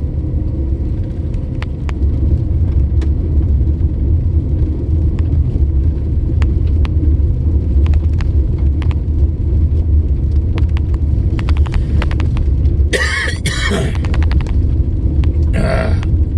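Steady low road rumble of a car driving, heard from inside, with frequent light ticks; it grows a little louder about two seconds in. Near the end a person coughs twice, brought on by pollen.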